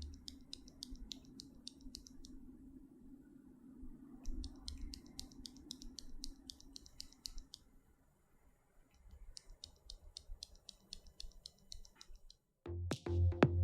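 Light, rapid clicking, several clicks a second, in three runs of two to three seconds each, over a faint low hum.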